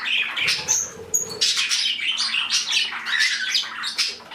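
A mixed flock of pet birds, budgies among them, chattering and chirping continuously, with a couple of brief high whistles about a second in.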